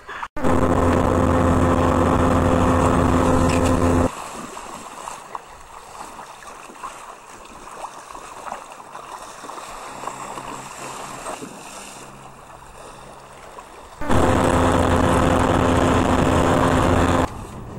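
Boat motor running steadily at an even pitch for about four seconds, then quieter rushing river water and wind for about ten seconds. The motor comes back near the end for about three seconds.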